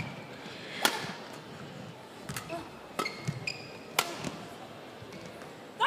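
Badminton rally: racket strings hitting the shuttlecock about once a second, with short high squeaks of shoes on the court floor in the middle.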